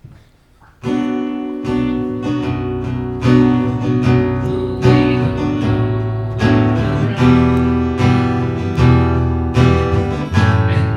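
Acoustic guitar strummed in a steady rhythm, starting about a second in: the opening of a live song.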